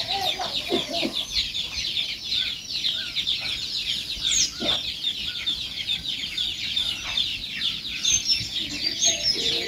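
A brood of chicks peeping without pause: many short, high-pitched, falling cheeps overlapping one another.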